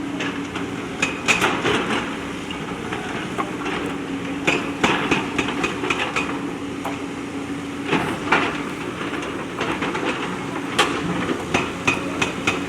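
JCB backhoe loader's diesel engine running steadily under load, with clusters of sharp metallic clanks and knocks from the bucket working against stones, coming every few seconds.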